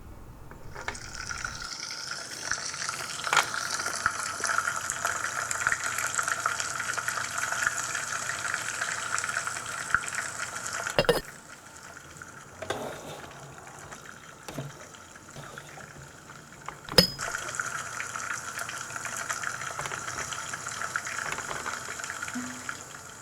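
Added kitchen cooking sound effect: a steady hiss like sizzling or running water, in two long stretches separated by a quieter spell with a few sharp clicks.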